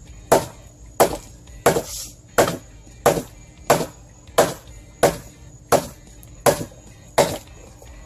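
Husqvarna hand-forged hatchet chopping into a log: about eleven sharp strikes at an even pace of roughly three every two seconds.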